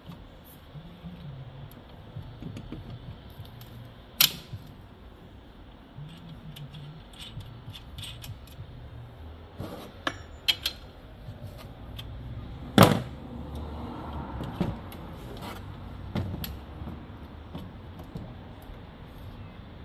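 Scattered clicks and knocks of strimmer parts being handled and fitted together during assembly. There is a sharp knock about four seconds in, a few quick clicks around the middle, and the loudest knock a little past the middle, all over a low steady rumble.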